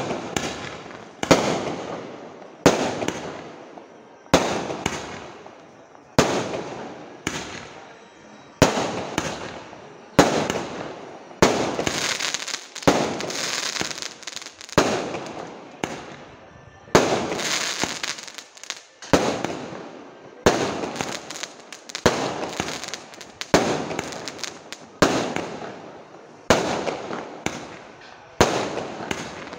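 A Winner brand 30-shot multicolour aerial firework cake firing in steady succession: about twenty sharp shots, roughly one every second and a half. Each shot trails off as it fades, and a few around the middle have longer, denser tails.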